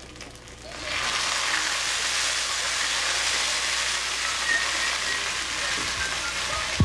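Food sizzling in a hot frying pan on a stove, a steady hiss that starts about a second in. A short knock near the end.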